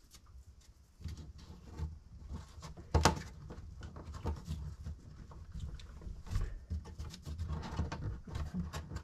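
Laser-cut plywood puzzle pieces clicking and knocking as they are handled and pressed into a snug-fitting wooden frame, with one sharper knock about three seconds in, over a low rumble.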